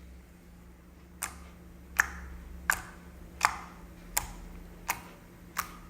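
Homemade slime being pressed and folded by hand, making seven crisp clicks about one every 0.7 seconds as trapped air pockets pop.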